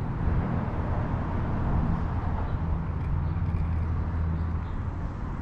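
Steady low drone of road traffic on the bridge overhead, with an even background hiss and no distinct events.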